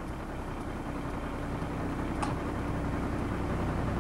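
Tandem-axle dump truck engine idling steadily, with a short sharp click about two seconds in.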